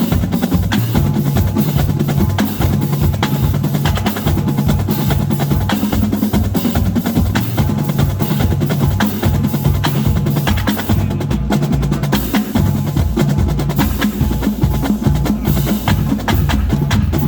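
College marching drumline of snare drums, tenor drums and tuned bass drums playing a fast, continuous cadence, dense with rapid snare strokes and rolls over low bass-drum notes that move in pitch.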